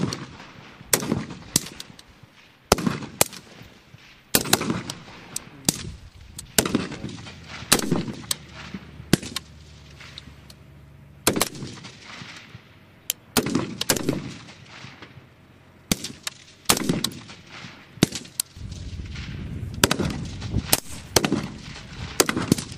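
Rifle fire from several 5.56 mm M4 and M27 rifles on a firing line: sharp single shots and quick pairs at irregular intervals, about one a second, each trailing off in a short echo.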